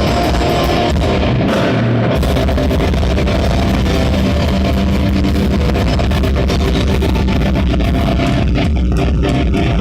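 Live rock band playing loud, full-band music with guitars and drums; the low end drops out briefly about a second and a half in, then the band comes back in.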